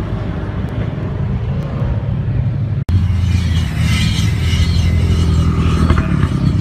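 A Nissan GT-R's engine running as the car pulls away, fading. After an abrupt cut, a Mitsubishi Lancer's engine runs steadily at low revs as the car rolls slowly past close by.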